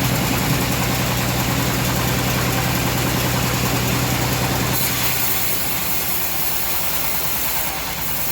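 Engine of a homemade bandsaw mill running steadily. About five seconds in, its low hum drops back and a high hiss rises.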